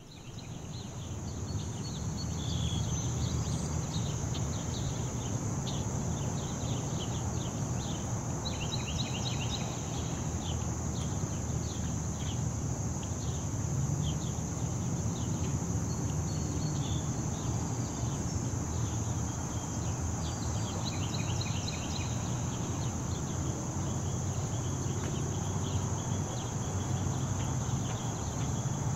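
Nature ambience: a steady high insect trill with birds chirping and calling throughout, over a low steady rumble. It fades in over the first couple of seconds.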